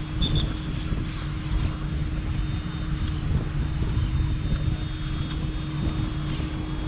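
Steady low rumbling noise, of the kind wind makes buffeting a camera microphone outdoors, with a faint steady hum and a few faint distant sounds above it.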